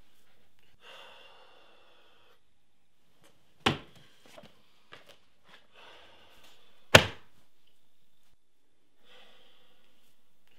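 Two loud, sharp bangs about three seconds apart, the second the louder, with softer stretches of hushed noise before, between and after them.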